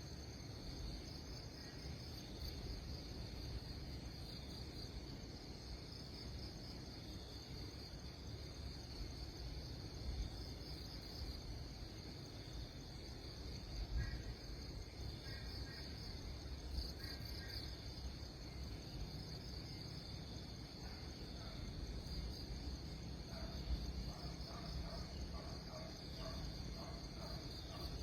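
Steady insect chorus, a high pulsing trill that runs on without a break, over a low rumble. A few faint short chirps come about halfway through, and a faint repeated lower call sounds over the last few seconds.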